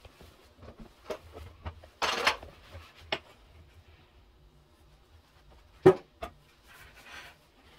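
A cloth rubbing and wiping across a glass-ceramic hob, with scattered light clicks and a few short sharp knocks; the loudest knock comes about six seconds in.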